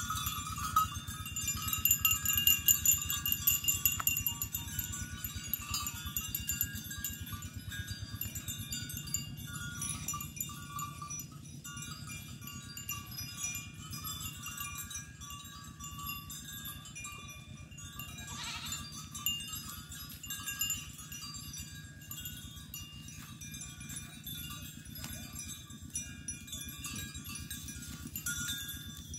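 Herd of goats grazing, with one goat bleating briefly about two-thirds of the way through, over steady high ringing tones.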